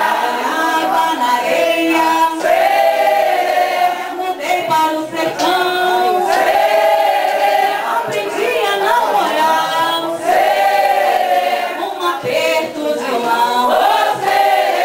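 A group of men and women singing a circle-dance song together, unaccompanied, in long held phrases of a few seconds each.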